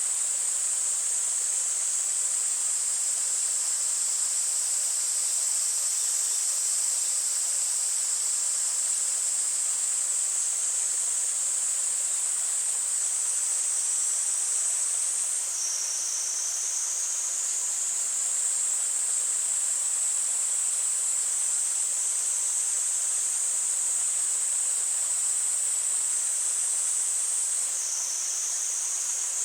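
Cicadas singing in a steady, high-pitched chorus that twice sinks slightly lower in pitch for a second or two, over a faint wash of flowing stream water.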